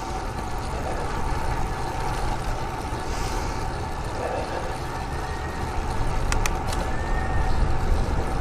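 Wind rushing over the bike camera's microphone with tyre and road noise while riding a road bike, with two or three sharp clicks about six seconds in.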